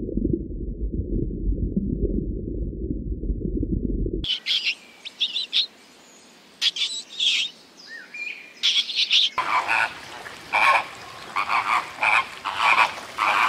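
Three animal sounds in turn: first a dense, low rumbling, then high squeaks and chirps with a few short gliding calls, and for the last few seconds a flock of flamingos calling in short, repeated honks.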